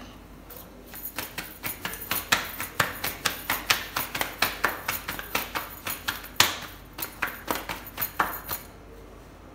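Metal bangles clinking in a quick, even rhythm, about three times a second, as a thin sheet of paratha dough is slapped and tossed from hand to hand to stretch it. It starts about a second in, has one louder clack about two-thirds through, and stops shortly before the end.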